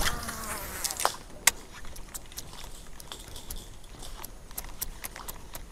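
Baitcasting fishing reel and rod handled while a topwater stickbait is retrieved: a short whir at the start, then irregular sharp clicks and ticks about twice a second, the loudest about a second and a half in.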